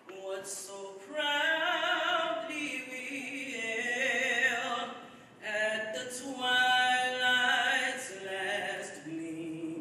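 A man singing solo into a podium microphone, long held notes with vibrato, with short breaks between phrases.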